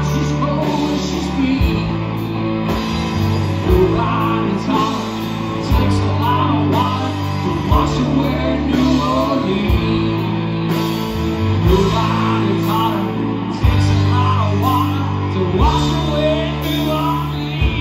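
Live country-rock band playing at full volume: electric guitars over bass, drums and keyboard, with bass notes changing every couple of seconds and a steady drum beat.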